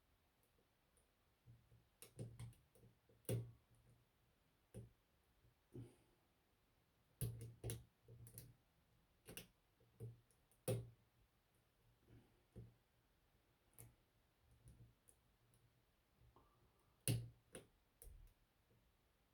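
A lock pick and tension wrench working inside a Yale shutter padlock: scattered small metallic clicks and taps at irregular intervals, sometimes two or three close together, with pauses between.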